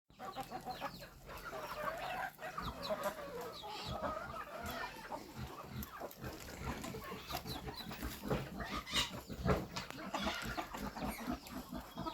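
A flock of chickens clucking and calling over one another, with scattered short clicks and knocks among them.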